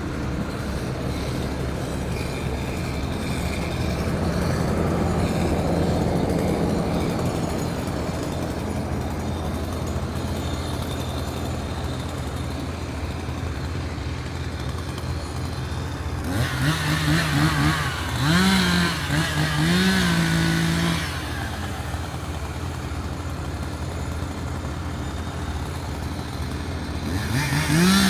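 Tree-removal crew's engine-powered equipment running with a steady drone. About two-thirds of the way through, an engine is revved up and down in several short pulses, and again briefly at the end.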